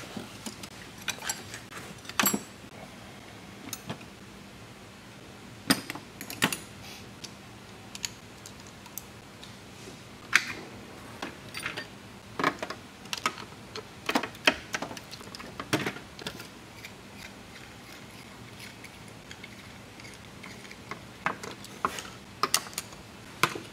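Metal wrenches and hand tools clinking and clattering as they are picked through in a tool chest drawer: irregular sharp clinks, with a few louder clanks.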